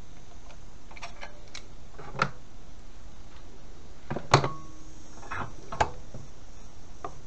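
Metal clicks and knocks of locking grips being released and lifted off a bent steel strip clamped in a bench vise. The loudest is a single ringing metal clank a little past halfway, with smaller clicks about a second in, at about two seconds and near six seconds.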